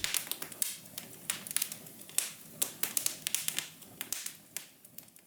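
Irregular light taps and clicks, several a second, thinning out toward the end.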